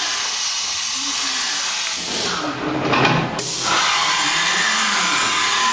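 Fadal VMC-6030 CNC vertical machining centre running, with a steady high whining hiss from its spindle and axis drives. About three and a half seconds in, as the spindle head travels up, the hiss grows louder and a thin steady whine joins it.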